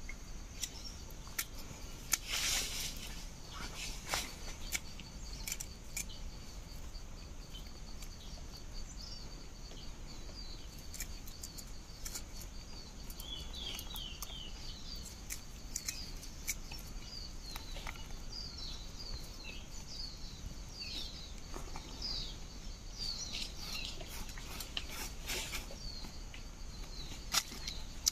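Forest ambience: a steady, high drone of crickets, with a small bird chirping in quick falling notes through the middle and later part. Scattered light clicks and a brief rustle come from hands scattering corn kernels on bare soil and dry leaves.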